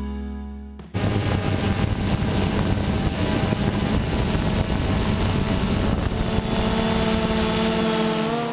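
A sustained music chord fades out, then an FPV drone's electric motors and propellers whir loudly with wind rush on the onboard camera's microphone. The motor tones shift in pitch near the end as the throttle changes.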